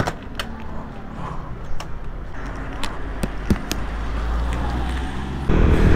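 Street ambience: a steady low traffic rumble with scattered short taps and knocks. Near the end it cuts abruptly to the louder, steadier rush of a scooter ride.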